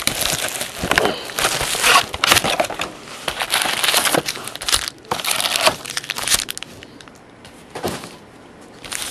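Crinkling and rustling of cellophane shrink-wrap and trading-card packs being handled as a hobby box of cards is opened, in a run of crackly bursts that quiets after about six seconds, with one sharp crackle near the end.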